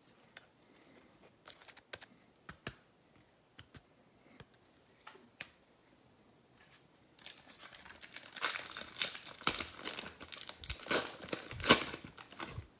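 A few light clicks of cards being handled, then, from about seven seconds in, the wrapper of a trading card pack being torn open and crinkled.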